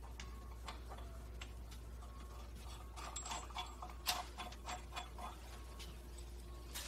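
Light metal clicks and taps from bolts being started by hand through a 14-gauge steel wheel guard onto threaded stud adapters, scattered and thickest about three to five seconds in.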